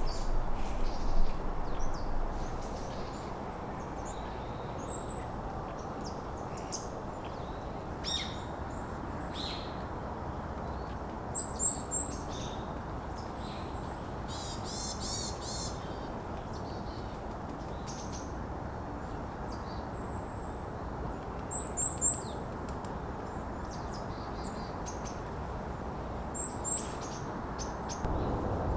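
Small birds chirping in woodland: short high chirps scattered throughout, several in quick pairs or triplets, and a brief trill about halfway through, over a steady background hiss.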